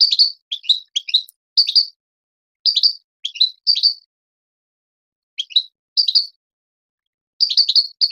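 A Moroccan goldfinch singing: quick phrases of short, high twittering notes broken by brief pauses, with a longer pause around the middle.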